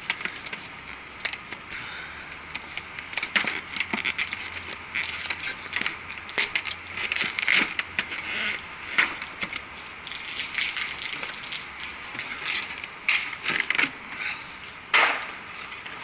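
Close handling noise while climbing an aluminium ladder: irregular rustling and scraping with many scattered clicks and knocks.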